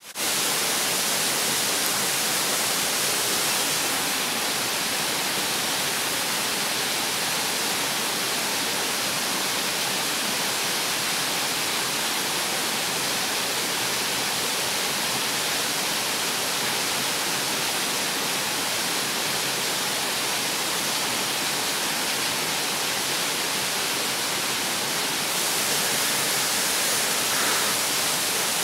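A waterfall's water rushing in a steady, unbroken hiss, strongest in the high range, a little louder near the end.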